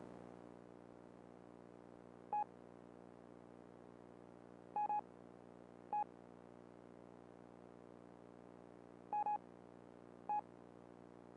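Synthesized electronic soundtrack: a steady low drone of several stacked tones, with short high electronic beeps over it, some single and some in quick pairs, seven in all.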